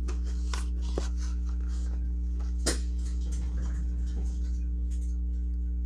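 Steady low electrical hum under a few light clicks and rustles of blister-packed toy cars being handled, the sharpest click about two and a half seconds in.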